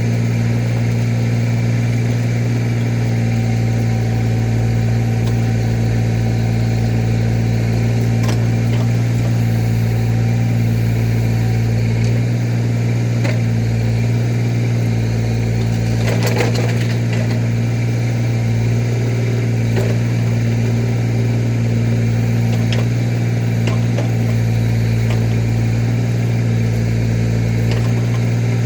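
Tractor engine running at a steady speed throughout, with a few scattered knocks and clanks, the busiest cluster about sixteen seconds in.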